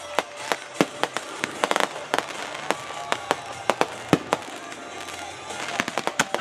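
Fireworks going off in quick, irregular succession: many sharp bangs and pops, with a dense run of pops near the end.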